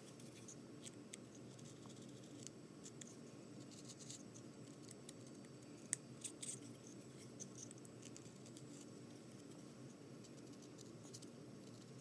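Faint small scrapes and ticks of a carving knife shaving basswood, smoothing charred burn lines off a carved bird's tail feathers, with one sharper click about six seconds in.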